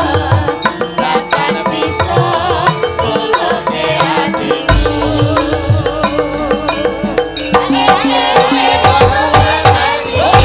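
Javanese gamelan music with drumming, under amplified singing by female sindhen and male singers.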